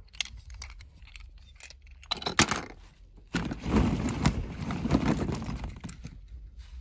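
Hollow plastic ball-pit balls clattering and rustling in a plastic tub as a hand digs through them, with sharp clicks as balls knock together. The loudest click comes about two and a half seconds in.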